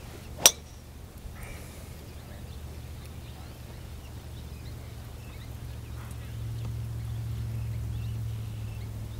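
A single sharp click about half a second in, then a steady low rumble that grows louder about six seconds in.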